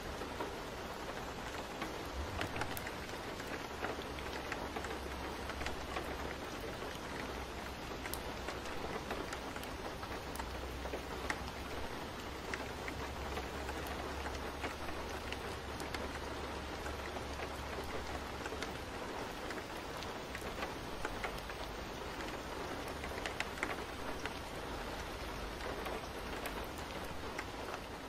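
Steady rain falling, with scattered light drop ticks; a low rumble sits under it from about two seconds in until past the middle.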